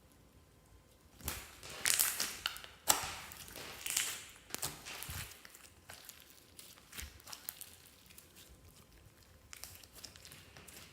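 Clear slime being worked by hand: sticky squishing, crinkling and clicking. The handling is busiest from about one to four seconds in, then thins to scattered soft clicks.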